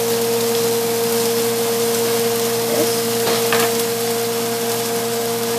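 A steady machine hum with a constant tone over an even hiss, with a few faint taps of a knife on a cutting board about three seconds in as garlic is chopped.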